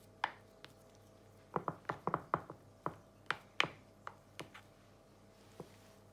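A plastic spatula flattening mashed potato in a glass Pyrex dish: a run of quick taps and clicks as it pats the mash and knocks the dish, bunched around the middle.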